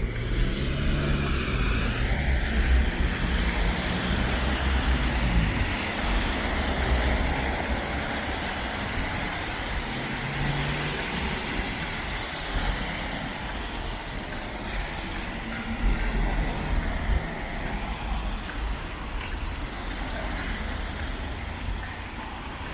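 Steady rumble and noise of heavy vehicles, with engine drone low down in the first half.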